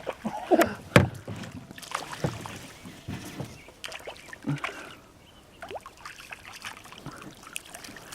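Irregular knocks, clicks and splashing around a small fishing boat while a hooked fish is pulled in, the sharpest knock about a second in.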